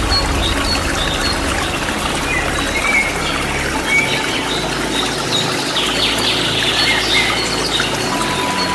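Waterfall rushing steadily, with small birds chirping in short high calls throughout.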